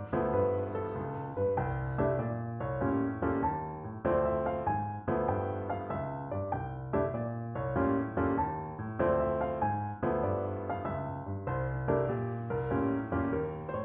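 Background music: a gentle piano piece, with notes struck one after another and left to ring out over low bass notes.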